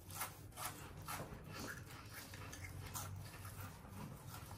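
People chewing crunchy dry noodles: faint, irregular crunches, with a low steady hum underneath.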